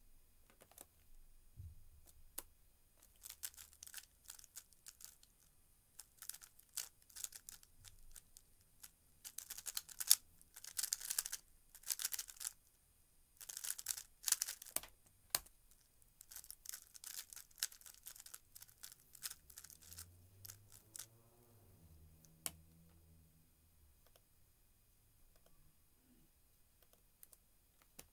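A 3x3 speedcube turned fast during a timed solve: rapid runs of plastic clicking and clacking, busiest in the middle, then falling away.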